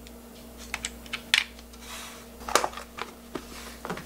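Scattered light clicks and clinks of boiled cockles and their shells being handled in a steel colander and laid into plastic storage containers, with a plastic lid clicking near the end.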